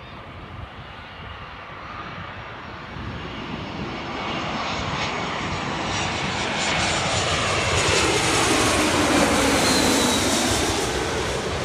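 Twin-engine narrow-body jet airliner on final approach, gear down, passing low overhead: its engine noise builds steadily to a peak, then the pitch of its whine falls as it goes over.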